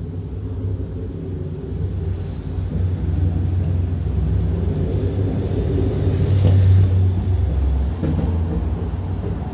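A low rumble that builds to its loudest about six and a half seconds in, then eases off near the end.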